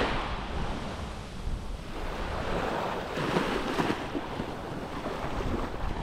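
Sea waves breaking and washing up the sand, a surge easing off at the start and another wash about three seconds in, with wind buffeting the microphone.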